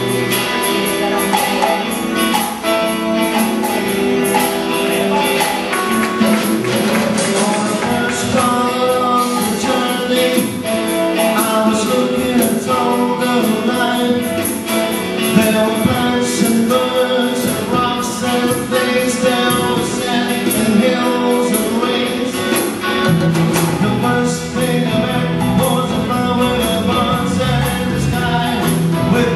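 Live band playing a song with a singer, saxophone and electric guitar, with a steady beat. A heavier bass part comes in near the end.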